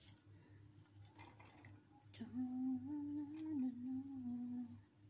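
A person humming a short tune that steps up and down in pitch for about two and a half seconds, starting about two seconds in. Before it there are a few light clicks of chopped onion and a plate against a steel pot.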